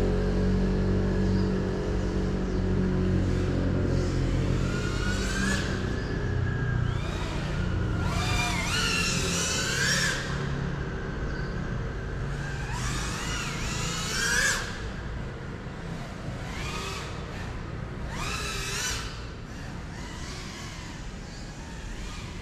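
GEPRC Cinelog35 FPV cinewhoop's brushless motors whining in flight, in repeated swells whose pitch sweeps up and down as the throttle is worked. A low hum underneath fades out over the first half.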